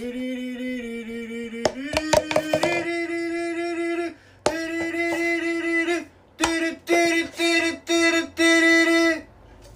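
A simple melody: long held notes that step up in pitch, then a run of short repeated notes, with a quick cluster of clicks about two seconds in.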